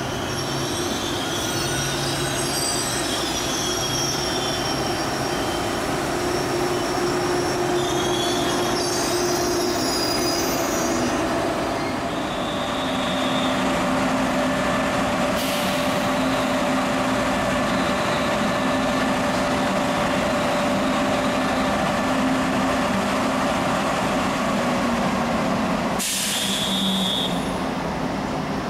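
Frecciarossa ETR 500 high-speed train rolling along the platform, its wheels squealing high-pitched for the first ten seconds or so. Then a stationary high-speed train hums steadily, with a short high beep twice.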